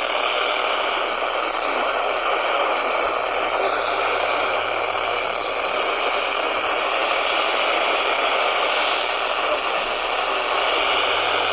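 Steady hiss of radio static from a receiver with no clear signal, an even rushing noise with a faint low hum coming in a few seconds in.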